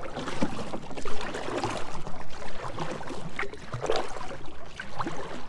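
River water gurgling and splashing around a moving canoe, with irregular small splashes.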